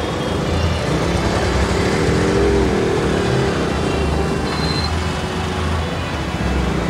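Slow-moving traffic heard from the back of a motorcycle in a traffic jam: a steady low rumble of engines and road noise from the bike and the vehicles packed around it.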